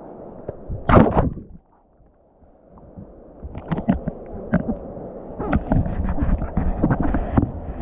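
Muffled rumbling with irregular knocks and thuds from paddling on the river. There is a loud sharp knock about a second in, a second of near silence, and then the rumble and knocks resume.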